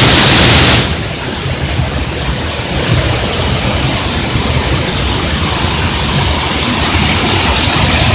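Steady rushing noise of a waterfall, a little quieter after about a second in.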